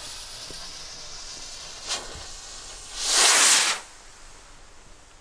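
Firework skyrocket motors hissing: a fading rush as a rocket climbs away, a short sharp crack about two seconds in, then a much louder hiss lasting under a second about three seconds in.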